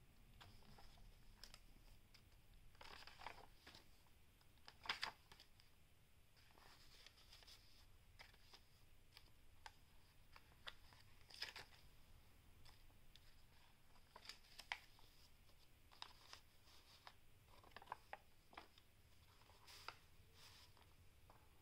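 Faint rustling and soft taps of paper pages being turned and handled in a handmade junk journal, in scattered short bursts, the strongest about three and five seconds in.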